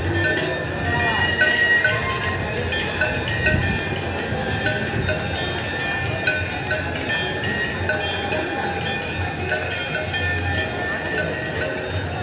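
Many aarti hand bells ringing continuously with a steady clangour of overlapping strokes, mixed with voices, during the Ganga Aarti ritual.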